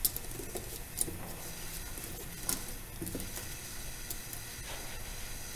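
A few light, sharp clicks and taps of screws and a small metal cover plate being handled and screwed back onto a power feed unit.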